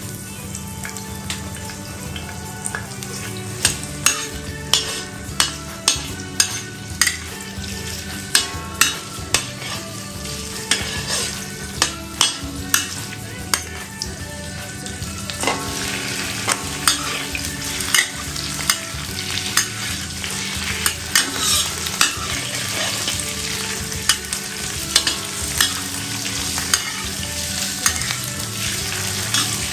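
Food sizzling while being stir-fried in a pan, with a spatula repeatedly knocking and scraping against the pan about once or twice a second.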